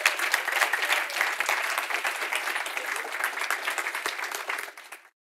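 Audience applauding, a dense clatter of many hands clapping, which cuts off abruptly near the end.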